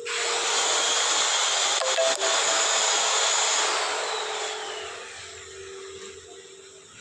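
A loud hissing rush that starts suddenly, holds steady for about four seconds, then fades away, with a couple of sharp clicks about two seconds in.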